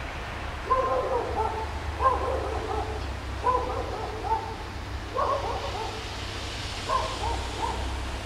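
A dog barking repeatedly, about one short double bark every second and a half, over a low steady rumble.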